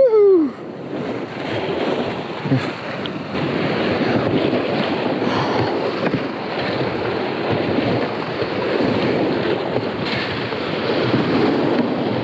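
Whitewater rushing and churning around a kayak running a rapid, with paddle blades splashing and wind buffeting the microphone. A brief loud call, rising then falling in pitch, sounds right at the start.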